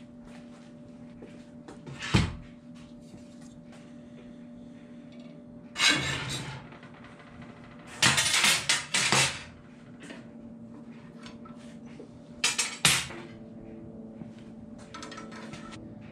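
Steel round rod being handled on a steel-topped workbench and in a bench vise: metal clanks and scraping. There is a sharp clank about two seconds in, bursts of metal scraping and rattling around six seconds and again from eight to nine seconds, and two quick clanks near thirteen seconds, over a steady low hum.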